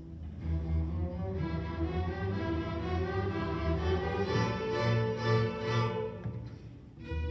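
Student string orchestra of violins, cellos and double basses playing a bluesy piece with bowed, sustained notes; the playing thins briefly just before the end, then picks up again.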